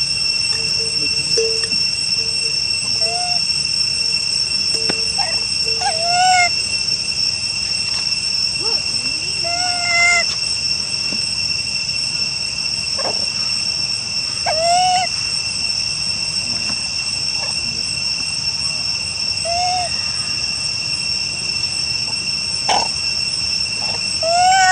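Steady high insect drone, with a short rising-then-falling animal call repeated every four to five seconds and a couple of sharp knocks.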